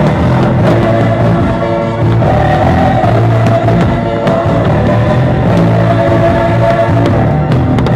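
Loud music with long held notes, the soundtrack accompanying the fireworks show.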